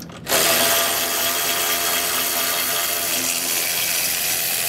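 Cordless electric ratchet with a 10 mm socket running steadily as it spins out a bolt from the radiator support bracket. The motor whir starts about a third of a second in.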